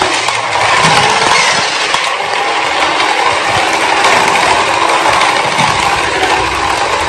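Battery-powered remote-control toy car driving across a tiled floor, its small electric motor and gears whirring steadily.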